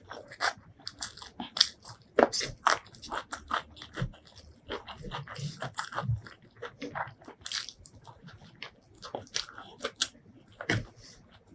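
Close-miked eating sounds: a person chewing and biting a mouthful of chicken biryani, with many sharp crunches and wet mouth clicks at an irregular pace.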